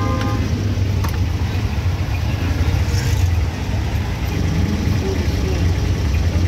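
Auto-rickshaw engine running with a steady low drone, heard from inside the open cab amid street traffic. A horn toot cuts off right at the start.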